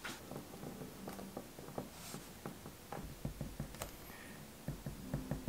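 A ballpoint pen writing on small paper notes on a table: soft scratching with scattered light tapping clicks, and a brief paper rustle about two seconds in.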